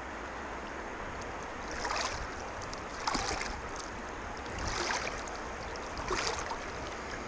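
Stream water running steadily, with four short splashes and sloshes a second or so apart as a gloved hand holds a tired rainbow trout in the current to revive it.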